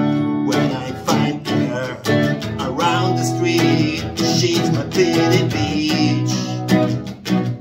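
A man singing to his own strummed acoustic guitar, a song in the key of B. The voice comes in about a second in, over steady strumming.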